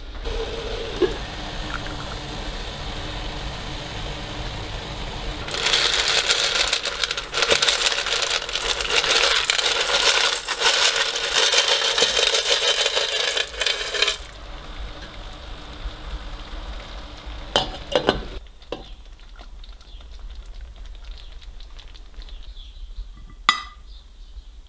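Tomato sauce simmering in a pan as a wooden spoon stirs it. From about five seconds in, a much louder steady hiss and bubbling of a pot of boiling water, with dry fusilli poured in, stops suddenly around fourteen seconds. Later come a few sharp clinks of a metal spoon on a ceramic plate, the loudest near the end.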